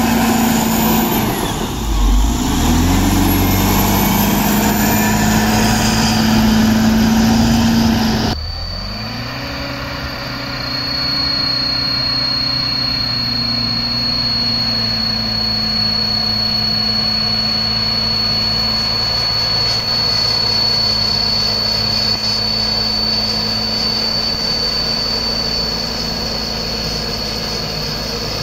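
Caterpillar D7R crawler dozer's diesel engine running under load as it pushes soil, loud and close, its engine note dipping and recovering about two seconds in. About eight seconds in the sound cuts to the same dozer heard farther off, quieter and steady, with a thin high whistle over it.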